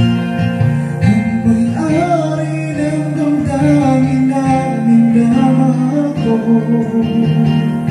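Karaoke backing music playing from a Platinum Reyna SE karaoke player: guitar accompaniment with a melody line over it.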